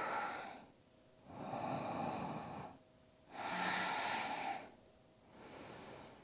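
A woman breathing slowly and audibly through the microphone, deep paced yoga breaths of about a second each with short pauses between, four in all, the last one softer.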